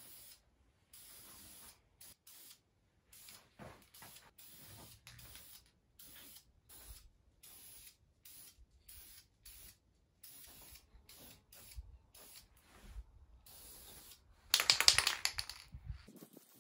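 Aerosol can of high-temperature engine paint spraying in many short bursts, each a fraction of a second, with brief gaps between. A louder, longer burst comes near the end.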